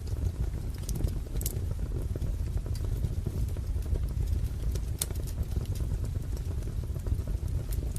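Wood fire crackling in a fireplace: a steady low rumble of burning logs with irregular sharp pops and snaps, the sharpest about a second and a half and five seconds in.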